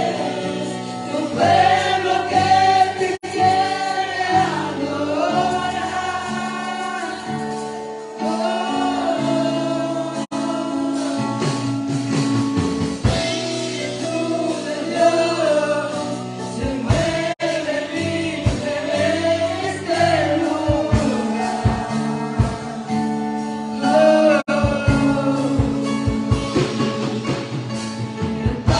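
Gospel music: voices singing a worship song over a sustained instrumental backing.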